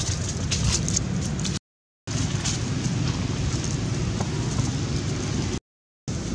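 Steady low rumble of wind buffeting the camera microphone, with a few short crackles in the first second. The sound cuts out to silence twice, for about half a second each time.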